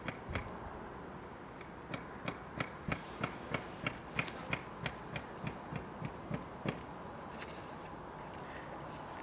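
A clock ticking fast and evenly, about three ticks a second, over a steady hiss. The ticking starts about two seconds in and stops about seven seconds in.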